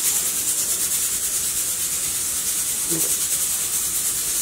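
Stovetop pressure cooker hissing steam through its valve, a steady high hiss with a fast, even pulsing. The cooker is up to pressure, cooking the beef.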